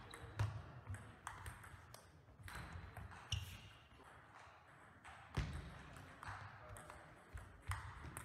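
Table tennis rally: the celluloid-type ball clicking sharply off the rubber bats and the tabletop in an irregular series, echoing in a sports hall.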